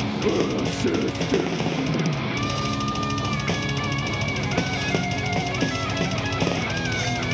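Live metal band playing: rapid drumming with fast bass-drum hits under electric guitars through Marshall amps. A little over two seconds in, a sustained, bending lead guitar melody comes in over the rhythm.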